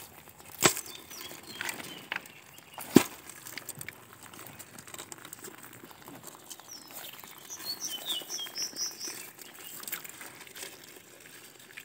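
Stones knocking and scraping as rocks are pulled aside by hand in a shallow stream bed, with two sharp knocks in the first few seconds. A bird chirps a quick run of short high notes about seven seconds in.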